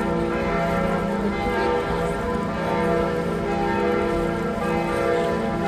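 Several large church bells ringing together, a continuous peal of overlapping, sustained tones.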